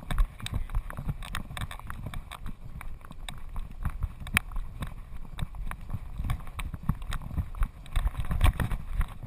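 A Doberman's paws and claws striking bare rock as it runs, in a quick, irregular patter of clicks and thumps. It is heard through a camera strapped to the dog's back, which picks up each jolt of its stride.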